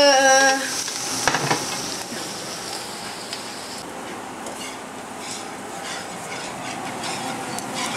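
Food sizzling in a frying pan on the stove while it is stirred, a utensil scraping the pan. The sizzle is stronger for the first four seconds or so, then softer.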